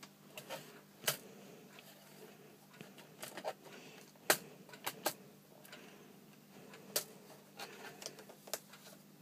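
Plastic laptop bottom cover clicking and tapping against the case as it is lined up and pressed into place: about a dozen short, sharp clicks at irregular intervals over a faint steady low hum.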